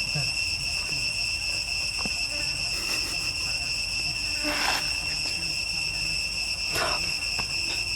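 Insects, cricket or cicada type, droning in a steady high-pitched chorus, with two brief hissy rustles about halfway through and near the end.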